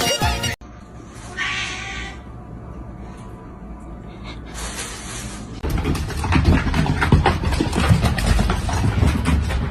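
A cat meows once, about a second and a half in. Loud crackling, rustling noise takes over for the last four seconds.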